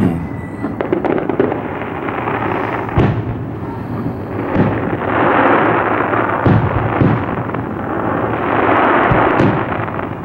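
Aerial fireworks display going off in quick succession: a continuous run of booms from bursting shells, with sharp bangs about three seconds in and several more through the second half.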